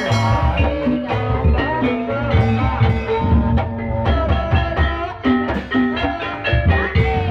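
Loud live ebeg accompaniment music: gamelan-style ensemble of drums and pitched metal percussion playing a steady, busy beat.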